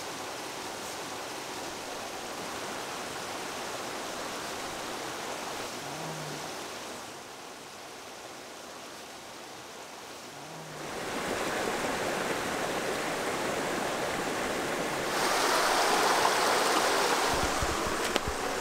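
Steady rushing noise like running water from a nearby stream. It drops quieter about seven seconds in, then grows louder again in two steps, with a few low knocks near the end.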